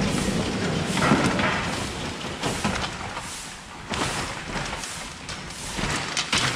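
Steel bakery rack trolley loaded with baking trays rattling as it is wheeled out of a rack oven, with several sharp clanks of metal trays and frame, over a steady rushing noise.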